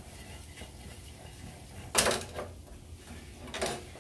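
A frying pan of whole boiled eggs being shaken and handled on the stove: a sharp metal clatter about halfway through, a fainter knock just after it, and another clatter near the end.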